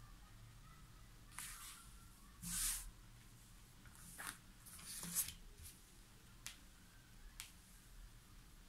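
Tarot cards dealt onto a table one at a time: a series of about seven short papery swishes and flicks as cards slide off the deck and land, the sharpest a little past the middle.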